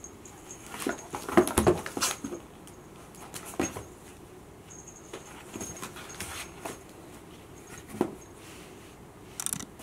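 A Scottish Fold kitten at play: scattered taps, scuffs and rustles as it paws at and tumbles around a cardboard box, a play tunnel and a hanging ball toy. The sounds are busiest and loudest in a flurry about a second in, with single taps later and a short burst of rustling near the end.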